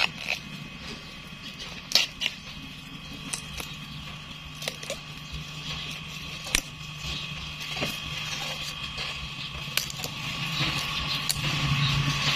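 Young bamboo side shoots snapping with sharp pops as they are broken off the base of a clump by hand. There are about ten snaps at uneven intervals; the loudest come about two, six and a half and ten seconds in.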